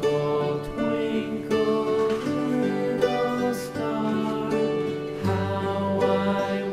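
Background music led by plucked guitar, with regular note changes.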